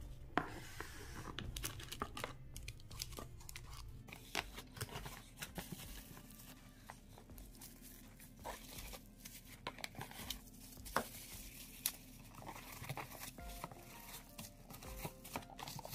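Faint crinkling and rustling of bubble wrap, with scattered sharp crackles, as bubble-wrapped plastic solar light discs are handled and lifted from a cardboard box.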